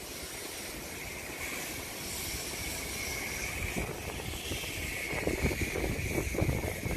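Heavy monsoon rain falling in strong wind, a steady rushing hiss, with gusts buffeting the microphone more often in the last couple of seconds.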